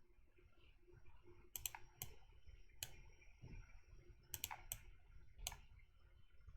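Faint, sparse clicks of a computer mouse and keyboard, about seven short clicks spread through, two in quick succession a little past halfway.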